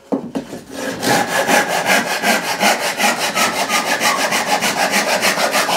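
Hand saw crosscutting through a chunk of firewood to cut the waste off a tenon: a few slow starting strokes, then quick, steady back-and-forth strokes from about a second in.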